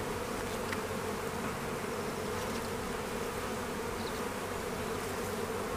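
Honeybee colony humming steadily around an opened hive as its frames are lifted out.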